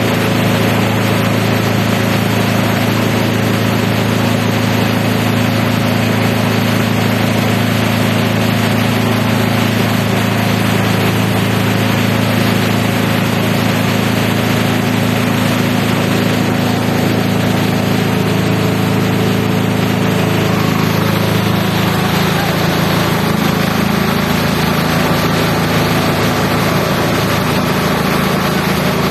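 Multi-purpose chopper-shredder machine running with a loud, steady engine-like drone; the drone changes a little about twenty seconds in.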